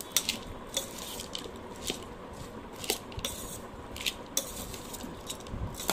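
A metal spoon clinking and scraping against a stainless steel bowl while mixing Chinese bhel, sharp clinks at irregular intervals, roughly one or two a second.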